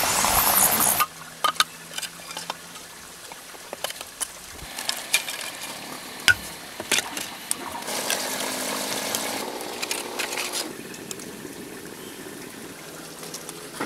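Water pouring and splashing for about a second, then cutting off, followed by scattered small clicks and knocks of handling and, past the middle, a rough rasping noise lasting a couple of seconds.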